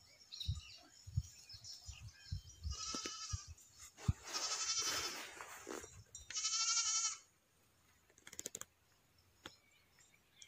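Goats bleating: three high, wavering bleats in a row, the middle one the longest, with faint low thumps between them.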